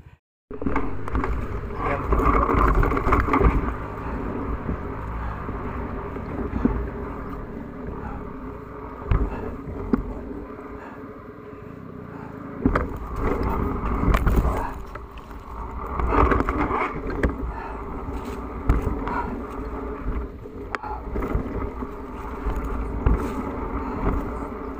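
KTM EXC enduro dirt bike's engine running as it is ridden along a rough dirt trail, the throttle opening and closing so the sound swells and drops, with frequent knocks and rattles from the bumps. It begins after a brief silence.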